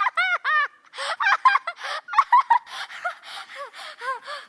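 A cartoon character's voice making a quick run of short, wordless cries that rise and fall in pitch, with gasping breaths between them.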